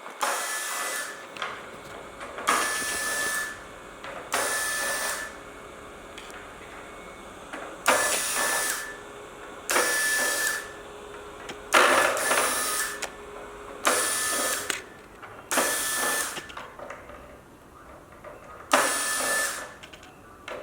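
Electric screwdriver running in short bursts of about a second, about nine times, backing out the screws that hold the cover on an LED display module. Each run has a high whine.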